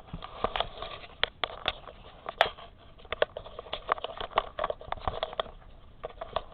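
Close handling noise: irregular crackles and sharp clicks, about three or four a second, as something is moved and rustled close by. The loudest click comes about two and a half seconds in.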